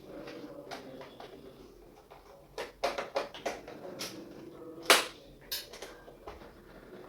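Hard objects handled on a workbench: a string of irregular clicks and taps, busiest a little past the middle, with the sharpest knock about five seconds in.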